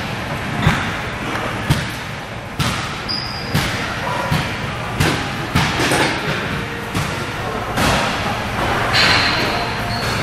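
Gym room noise with irregular thuds and clanks of weights, about one a second, and voices in the background.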